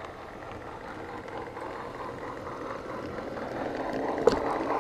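HO-scale model train rolling along its track, heard from a camera riding on the train: a steady rolling rumble that grows louder, with a sharp click a little after four seconds in.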